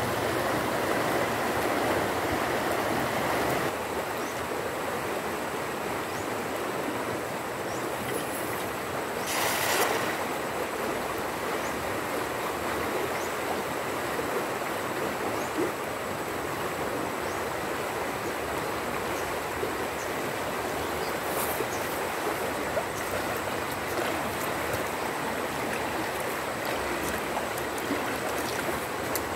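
River water flowing steadily in a continuous rush, the river running high after a flood, with one brief louder rush about ten seconds in.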